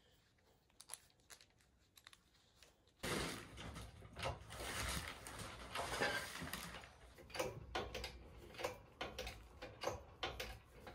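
Engine block being hoisted on a shop engine hoist by a lifting chain: a few faint clicks, then about three seconds in a stretch of rustling and clinking, followed by scattered metallic clicks and knocks of the chain and hoist.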